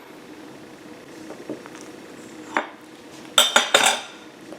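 Metal cutlery clinking and scraping on a dish: one sharp click about two and a half seconds in, then a short run of clinks and scrapes about a second later.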